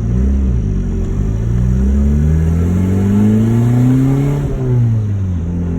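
Honda Civic's D16Y8 VTEC four-cylinder engine revving under way: a couple of quick rises and falls in pitch, then a long climb over about two seconds that drops back and settles to a steadier note near the end.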